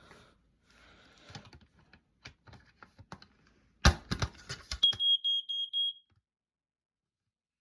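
A smoke detector being handled, with rustling and then a quick burst of loud clicks and knocks, followed by its alarm sounding a high-pitched tone for about a second that cuts off suddenly.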